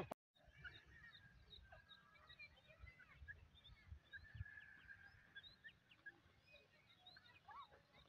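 Faint, scattered high bird chirps and short whistled calls, with one clearer rising-and-falling call near the end. A few soft low thumps sound through it.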